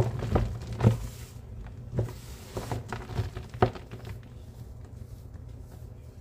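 Hands squeezing and crumbling clumps of a powdered homemade cleaning mix in a sink: crunchy, crackling squishes as the clumps break, several sharper crunches in the first few seconds, then softer crumbling.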